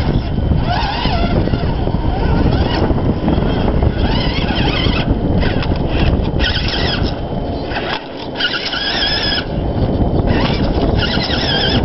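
Electric motor and gears of a radio-controlled rock crawler whining in short spurts of about a second as the throttle is worked on and off, over heavy low noise.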